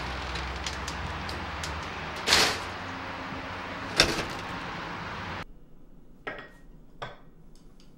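Aluminium screen door shutting: a brief swish about two seconds in, then a sharp clack against its frame about four seconds in, over a steady outdoor hum. After the hum cuts off, two light clinks of china teacups on saucers.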